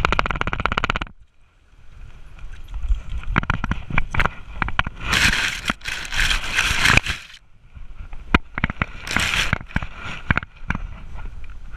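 Rustling, scraping and knocking on a GoPro strapped to a wet dog as the dog rolls and rubs through grass, with two longer bursts of hiss partway through.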